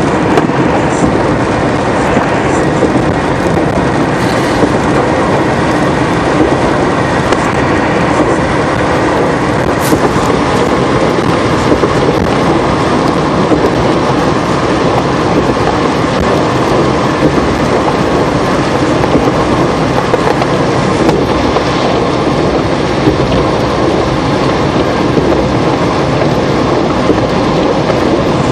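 Steady road noise inside a car at highway speed on wet pavement: tyres hissing on the wet road with the engine and wind running underneath.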